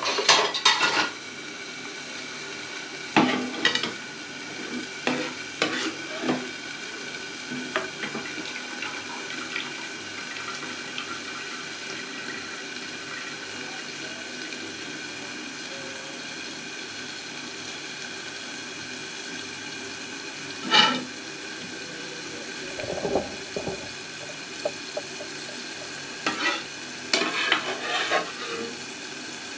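Pots, pans and cooking utensils clattering and knocking in short, scattered bursts over a steady low hiss.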